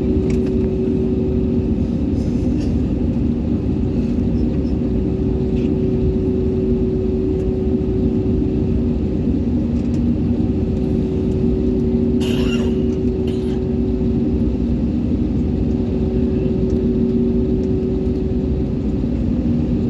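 Airliner engines heard from inside the cabin: a steady, unbroken rumble with two steady humming tones over it.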